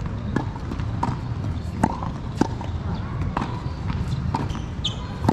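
Tennis rally on a hard court: sharp pops of balls struck by rackets and bouncing, roughly one every second, over a steady low rumble.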